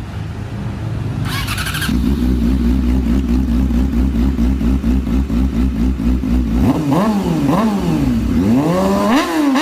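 A 2014 Honda CBR600RR's inline-four engine starting and settling into a steady idle through its exhaust, then revved in several quick rising and falling blips near the end.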